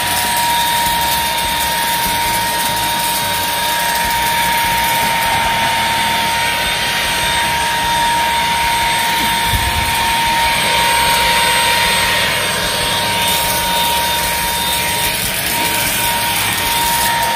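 Xiaomi Dreame XR cordless vacuum cleaner running steadily at full speed, a high motor whine over rushing air, as it sucks up scattered pieces of paper.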